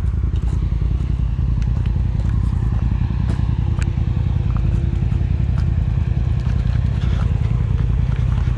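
Polaris RZR side-by-side engine idling as a steady low rumble, with scattered clicks and scrapes of footsteps on loose rock and dirt.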